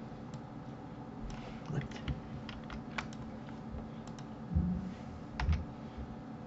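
Scattered sharp clicks of a computer mouse and keyboard keys being pressed, over a steady low hum, with two soft low thumps around four and a half and five and a half seconds in.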